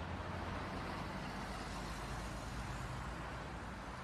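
Steady vehicle noise heard from inside the cab through a dashcam: a low engine hum under an even hiss, unchanging throughout.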